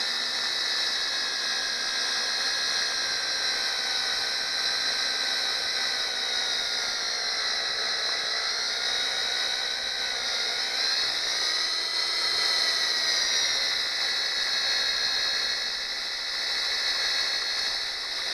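Electric drill running without a break, boring out a rust-seized screw stud, its whine dipping in pitch about halfway through and then rising again.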